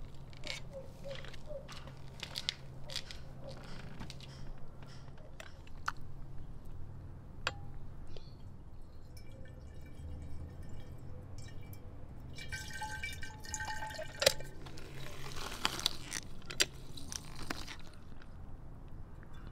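Lemons being cut on a wooden board with sharp knife clicks, then an old manual metal lever juicer squeezing lemon halves, the juice splashing and dripping into a glass bottle.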